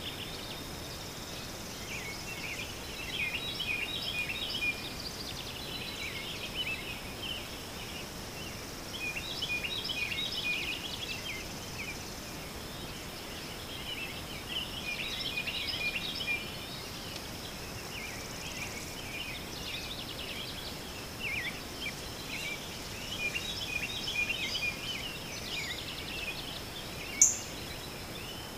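Birds chirping in bursts every few seconds over a steady background hiss, with a thin steady high tone underneath. There is one sharp click near the end.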